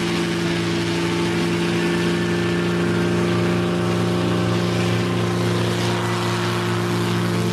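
Helio Courier single-engine piston propeller aircraft at takeoff power, its engine and propeller making a steady, even drone as it runs down the runway and lifts off.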